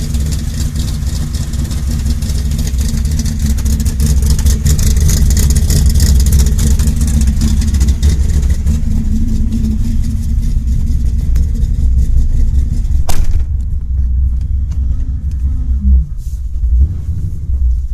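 Chevrolet 402 big-block V8 with a Comp Cams Big Mutha Thumpr camshaft running at a rough, lumpy idle, the choppy idle that cam is built for. A steady hiss over the engine stops after a click about two-thirds of the way through.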